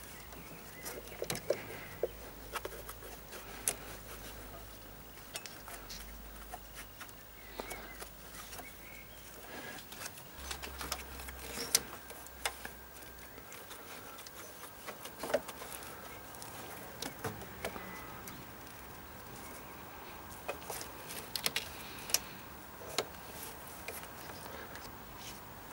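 Scattered small clicks, taps and rubbing of gloved hands fitting a new ribbed accessory drive belt around the alternator and engine pulleys.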